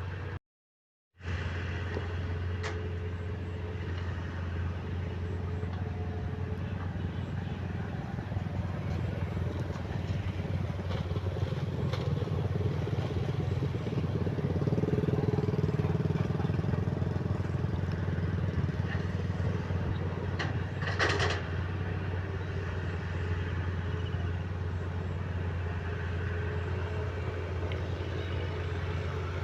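Heavy earthmoving machinery (excavator and bulldozer) diesel engines running steadily with a deep drone, getting louder for a few seconds around the middle. The sound cuts out completely for under a second about a second in, and a brief high squeal sounds about two-thirds of the way through.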